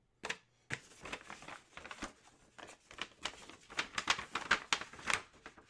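A tan paper envelope rustling and crinkling as it is handled, in quick irregular crackles that grow busier in the second half.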